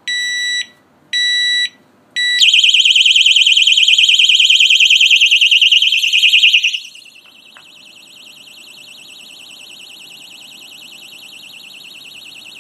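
Kovix KD6 disc lock's alarm: two short high beeps, then about two seconds in the siren goes off with a loud, rapid high-pitched warble, set off by the lock being moved. About seven seconds in it drops much quieter and keeps ringing steadily.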